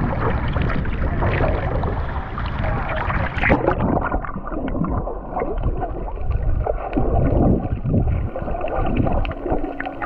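Seawater sloshing and splashing around a waterproof camera at the sea surface, then a splash about three and a half seconds in as it goes under. After that the sound is muffled underwater bubbling and gurgling.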